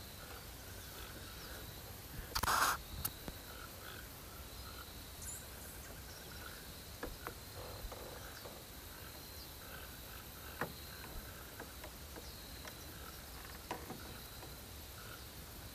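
Faint calls of small wild animals: a steady high drone with scattered short chirps. About two and a half seconds in there is a brief rush of noise, the loudest sound, and a few light clicks follow later.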